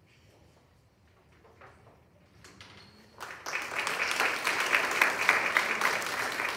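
Near quiet with small rustles, then an audience breaks into applause about three seconds in, steady many-handed clapping.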